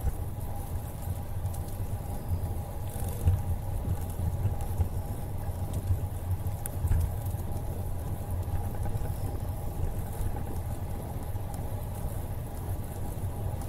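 Steady low rumble of wind on the microphone and tyre noise of a bicycle rolling on a paved trail.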